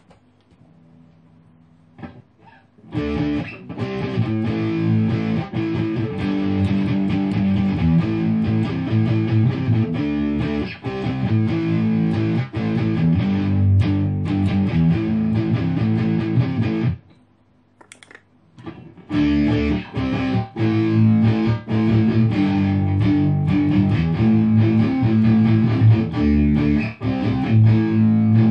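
Distorted electric guitar improvising through a Me All Sound MP80D digital delay pedal set to 50 ms modulation mode. The playing starts a few seconds in, stops for about two seconds past the middle, then picks up again.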